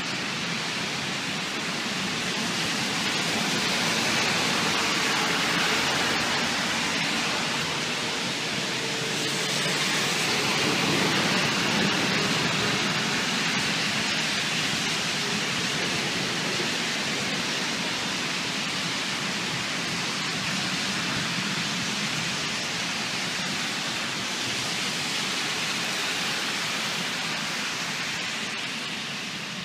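Heavy thunderstorm rain pouring down, a steady hiss that swells a little twice before easing back.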